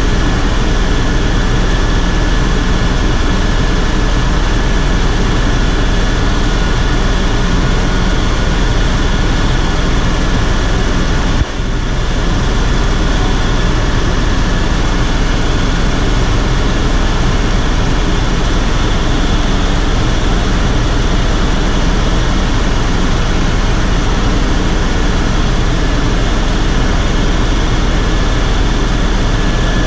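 Helicopter turbine engine and rotor running steadily, heard inside the cockpit in flight: a dense drone with a steady high whine over it. The sound cuts out for an instant once, about a third of the way through.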